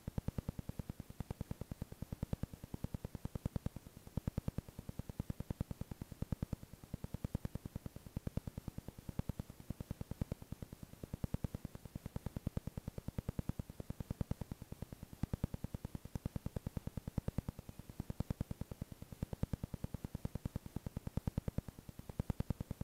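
Background electronic music with a fast, even pulse.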